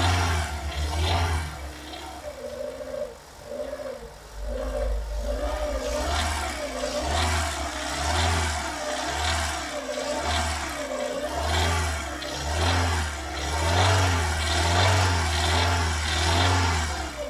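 Renault K4M 1.6-litre 16-valve petrol engine being revved over and over in quick blips, with a knocking rattle as the load comes off and the revs fall. The cause is unknown; the owner suspects the cam phaser.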